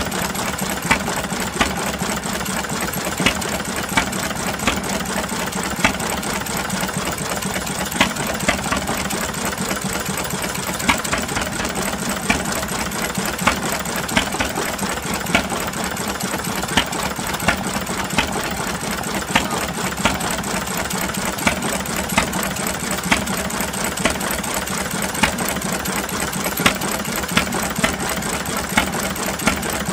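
Bamford stationary engine running, its sharp firing beats coming at uneven intervals a second or two apart over a steady mechanical rattle and hum.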